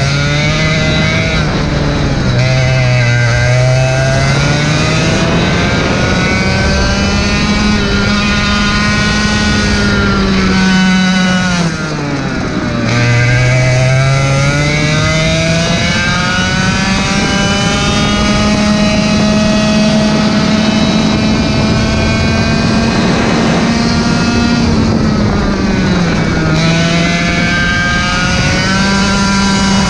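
Racing kart engine at full racing speed, heard from on board with wind rushing over the microphone. The engine pitch climbs steadily, falls steeply as the kart slows for a corner about twelve seconds in, climbs again and holds high along a long straight, then dips once more near the end.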